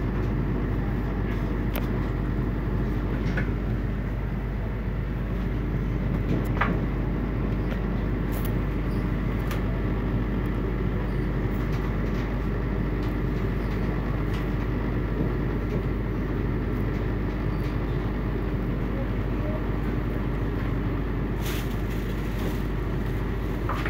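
Running noise of a passenger train heard from inside the carriage while it moves along the track: a steady rumble with a constant low hum and a few sharp clicks scattered through it.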